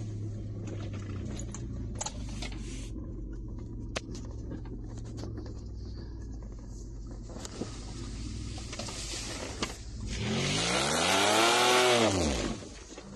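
2008 Mitsubishi Endeavor's 3.8-litre V6 running at low speed over a rough dirt trail, with scattered knocks and rattles from the body. About ten seconds in the engine revs up and back down over two seconds while a tire churns through wet mud with a loud rushing spray, which then cuts off quickly.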